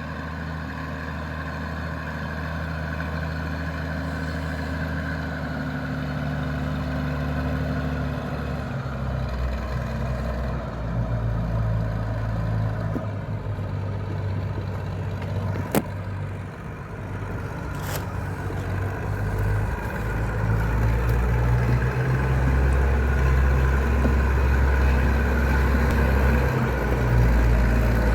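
Combine harvester's engine and threshing machinery running steadily, its note shifting a couple of times and growing louder, with two sharp clicks about sixteen and eighteen seconds in.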